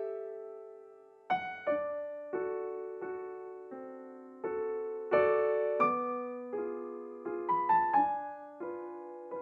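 Background music: a slow solo piano piece. Notes and chords are struck about every two-thirds of a second and each is left to ring and fade, with a held chord dying away before the playing resumes about a second in.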